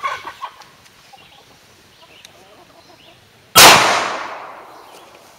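A single 9mm Luger full-metal-jacket gunshot about three and a half seconds in, sharp and loud, its echo trailing off over about a second and a half.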